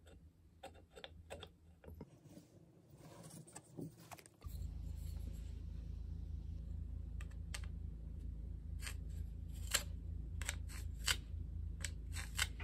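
Scattered light clicks and taps of a pencil and a metal speed square being handled against a ceramic tile while a cut line is marked. A low steady hum comes in about four seconds in and carries on under the clicks.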